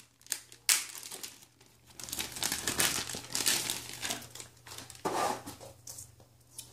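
Thin clear plastic bag crinkling in irregular bursts as it is opened, with paper rustling as a folded paper manual is pulled out of it.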